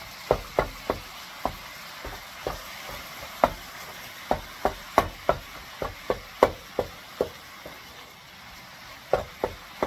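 Ground turkey sausage sizzling as it browns in an oiled skillet, with many sharp irregular taps, two or three a second, as a utensil knocks and scrapes the pan to break up the meat.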